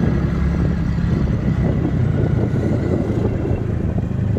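Vehicle engine running steadily close by, a constant low drone.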